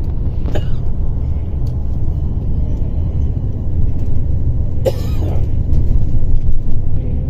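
Steady low road and engine rumble heard from inside a moving vehicle, with two short sharp sounds, about half a second in and about five seconds in.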